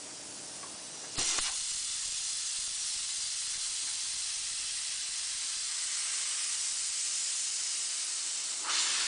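Compressed air hissing steadily out of a tyre's open valve stem, its valve core out, while the core is screwed back in. The hiss starts sharply about a second in and swells briefly near the end.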